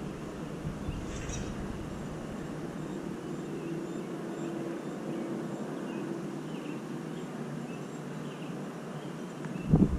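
Gusty wind: a steady rushing during a lull, then a gust buffets the microphone with a low rumble near the end.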